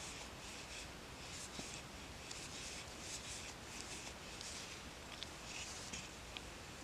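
Faint, repeated rustling of bulky yarn being drawn through loops with a crochet hook as double crochet stitches are worked, with a few light ticks near the end.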